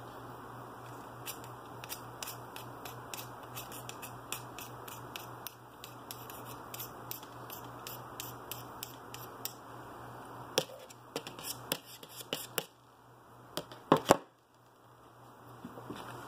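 Small hand-work at a workbench: a run of light clicks and scratches from tools and LED leads being handled, with a cluster of sharper clicks and taps about ten seconds in, over a faint steady low hum.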